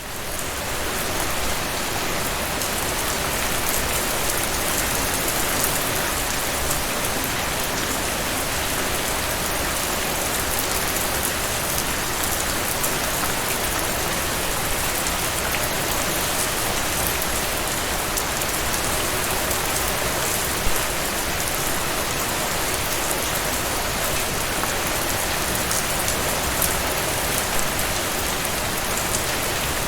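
Steady rain falling and spattering on surfaces, with scattered individual drops ticking through it. It fades in over the first second.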